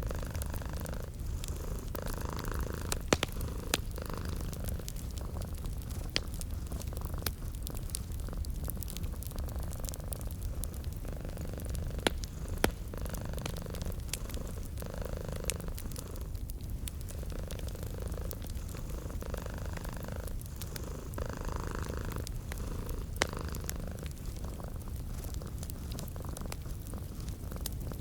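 Domestic cat purring steadily, the purr swelling and easing in slow cycles every second or two with each breath. A handful of sharp wood-fire crackles pop over it.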